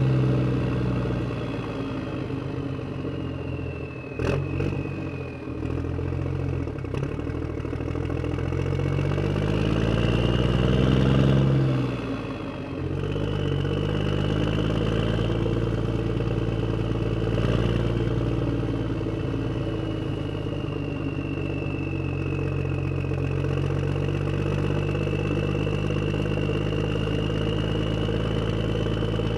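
A motor vehicle engine running steadily, its revs climbing gradually in the middle and dropping back sharply about twelve seconds in, with a few sharp clicks around four to seven seconds in.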